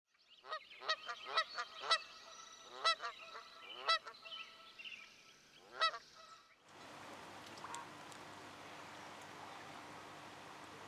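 Geese honking: about nine short, upward-bending honks, six of them in quick succession in the first two seconds and the rest spaced out over the next four. From about seven seconds in, only a steady background hiss remains.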